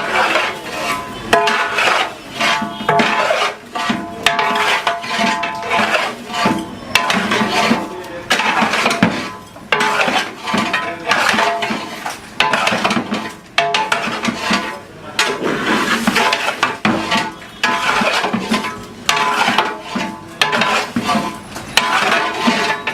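Metal spatula striking and scraping the bhaji across a large iron griddle, a fast, irregular clatter of clanks with the metal ringing between strokes.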